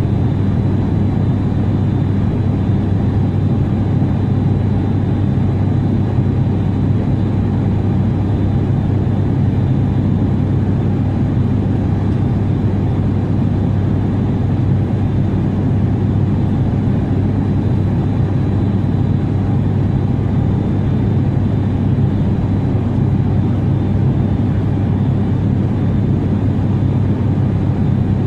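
Airliner cabin noise: a steady low engine drone as heard from inside the passenger cabin, with a faint high whine over it.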